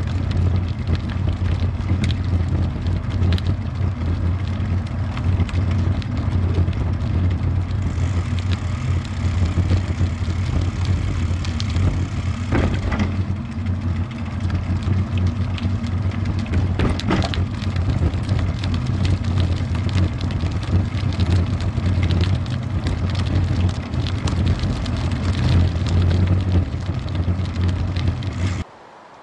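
Steady rumble of wind noise and rolling road noise on a bicycle-mounted action camera's microphone while riding, with a couple of brief knocks from bumps in the path. The rumble cuts off suddenly near the end.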